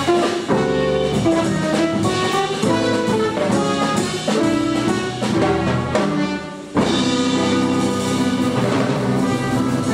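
Live jazz quartet playing: trumpet carrying the melody over guitar, double bass and drum kit. The band drops back briefly nearly seven seconds in, then comes in again on a sharp loud accent.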